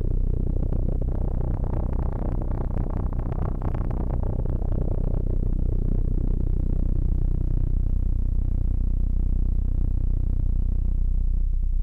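Ambient drone from a Phenol patchable analog synthesizer and modular rig: a deep, steady low tone with a grainy, flickering upper layer that swells over the first few seconds and then thins out as the knobs are turned.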